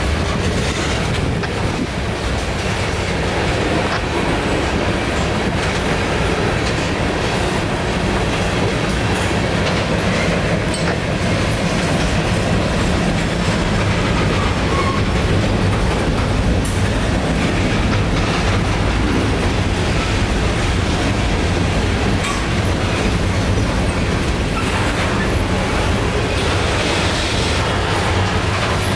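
Norfolk Southern freight train's tank cars, covered hoppers and boxcars rolling steadily past close by, a continuous rumble and clatter of steel wheels on the rails.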